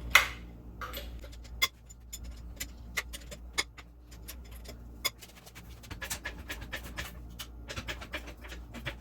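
Lug wrench and socket working a truck's wheel lug nuts loose: a sharp metal knock just after the start and another about 1.6 s in, then irregular light clicks and ticks, quickening in the second half.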